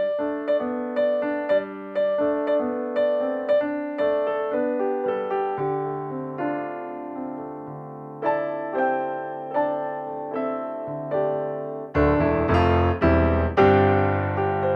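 Background piano music: a gentle line of single notes at a steady pulse over low held notes, swelling fuller and louder about twelve seconds in.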